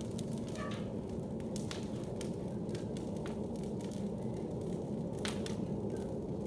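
Bonfire crackling: sharp, irregular pops scattered over a steady low rush.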